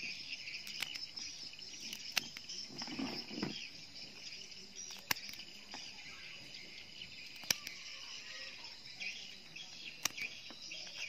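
Scissors snipping the legs off a giant freshwater prawn: a handful of sharp clicks a couple of seconds apart, with a brief muffled handling sound about three seconds in. A steady high insect chorus runs underneath.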